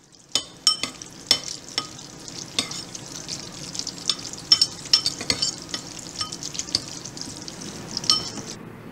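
A metal spoon stirring shells and cheese in a ceramic bowl, clinking against the bowl many times at an irregular pace with short ringing notes, over the soft noise of the sauce-coated pasta being turned. The stirring stops abruptly near the end.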